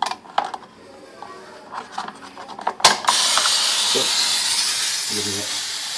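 Plastic clicks and snaps as the hose clamp on a toilet bidet-spray mechanism is worked loose, then about three seconds in a sudden steady hiss of water spraying out of the disconnected hose, because the water supply was left open after testing.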